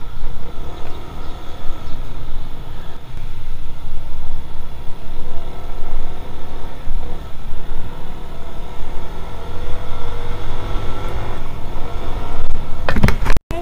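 Yamaha NMAX 155 scooter riding on the road: a low wind rumble on the microphone over the single-cylinder engine, whose note climbs gradually as the scooter speeds up. The sound drops out for a split second near the end.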